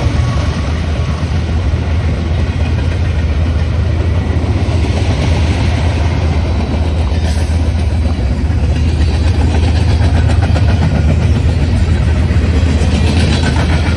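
Diesel locomotive running with a steady low engine drone and continuous rolling noise.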